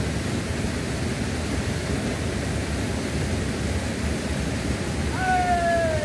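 Steady rushing of a shallow river's current, an even, unbroken noise. Near the end a high, drawn-out cry starts and slides slightly down in pitch.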